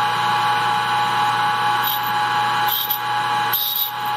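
High-speed toolpost grinder with an angled diamond bit, its motor whining steadily as the bit chamfers the inside end of a wet Pyrex glass tube turning in the lathe. From about two seconds in, a high grinding hiss comes and goes as the bit bites into the glass.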